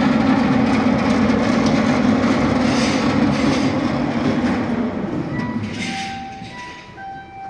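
36-inch DoALL V-36 vertical bandsaw running with a loud, steady mechanical hum from its drive and blade. The hum dies away over the last few seconds as the saw coasts to a stop.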